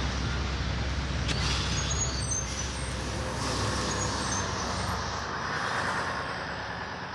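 City street traffic: the steady rumble of passing trucks and buses, with a few brief high squeals in the first few seconds.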